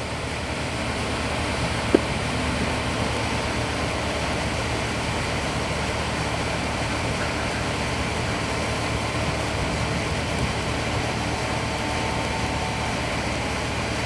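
Steady low mechanical hum, like an engine running at a distance, with a single sharp click about two seconds in.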